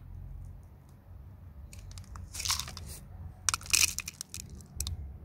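Gritty crunching and crackling of potting soil topped with coarse granite grit as a rooted hydrangea cutting's soil plug is pulled out of a plastic plug-tray cell, in two bursts about a second apart, the second the louder.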